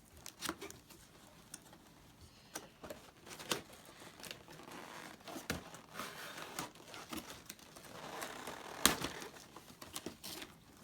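A cardboard box and its plastic packaging being opened by hand: crinkling and tearing with many scattered clicks and knocks, the sharpest knock near the end.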